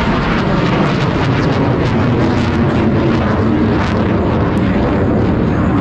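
Two F/A-18 Super Hornet jets in flight: a loud, steady rumble of their engines.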